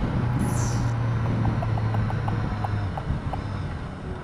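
BMW S1000R inline-four engine running at a steady cruise, mixed with wind noise on the helmet camera's microphone. The engine note fades about three seconds in and the sound grows quieter toward the end.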